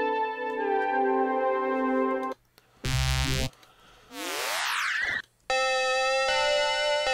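Arturia Pigments 3 software synthesizer presets played one after another: a held chord that shifts about half a second in and stops after about two seconds, then a short bright buzzy hit with a heavy bass, a rising sweep, and another held chord that changes once.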